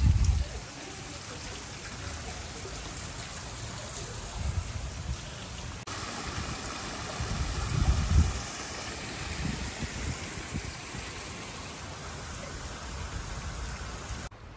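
Running water, a steady splashing trickle such as a garden fountain or stream. Low rumbling bumps come now and then, loudest at the start and about eight seconds in.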